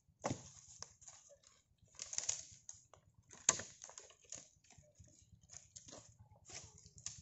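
Dry rubber-tree branches cracking, snapping and rustling through dry leaf litter as they are pulled and broken by hand, with footsteps crunching on the leaves. The sharpest crack comes about three and a half seconds in.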